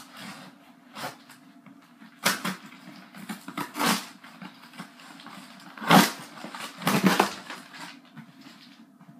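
A shipping package being torn and ripped open by hand: a run of short, sharp tearing and rustling bursts, the loudest about six and seven seconds in.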